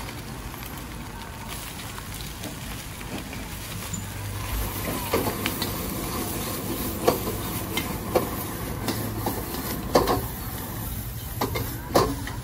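Stir-frying in a street-stall wok: food sizzling over a steady rushing noise, with a metal spatula knocking against the wok several times in the second half.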